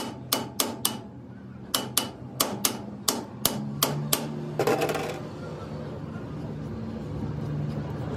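Hammer blows on metal, each with a short metallic ring: a quick run of four, a pause, then about nine more, stopping about four seconds in. A brief scrape follows, over a steady low hum.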